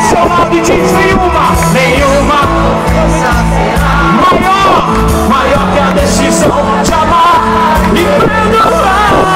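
Live gospel rock band playing: drums, bass and electric guitars under a sung lead vocal, loud and continuous.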